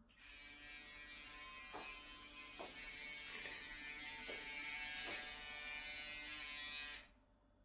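Electric shaver running with a steady buzz, a few faint ticks along the way, then switched off about seven seconds in.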